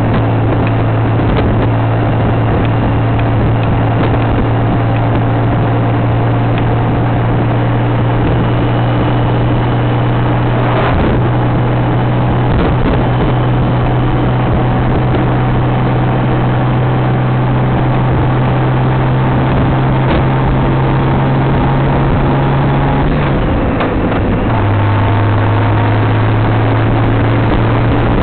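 Honda Gold Wing motorcycle engine running at a steady cruise, with wind rushing past the microphone. The engine hum holds steady and slowly climbs in pitch, with a brief dip about three-quarters of the way through.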